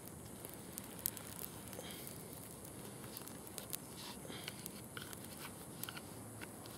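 Small fire of grass and damp kindling burning in a Dakota fire hole, faint scattered crackles and pops over a steady hiss, with one sharper pop about a second in, as the fire catches.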